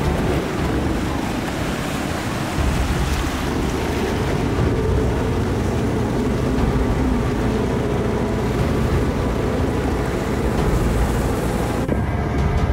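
A small motorboat under way: its engine runs with a steady low hum that grows louder about two and a half seconds in, over wind on the microphone and water rushing along the hull.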